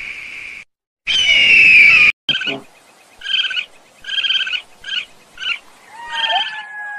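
Animal calls: a loud call of about a second, falling slightly in pitch, then a run of about six short calls. A long gliding tone starts near the end.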